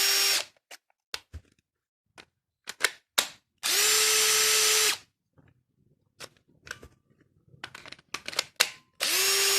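Dewalt DCF885 cordless impact driver spinning free with no load, triggered in short runs of about a second each. It spins up quickly to a steady high whine, once at the start, once in the middle and again near the end, with clicks and handling knocks in between.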